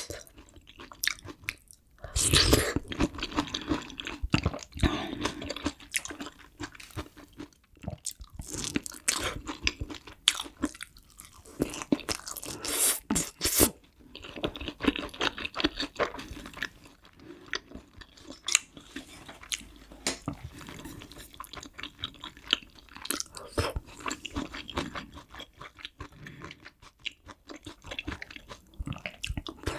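Close-miked chewing and wet mouth sounds of a person eating kimchi stew with pork, with many irregular sharp clicks and smacks.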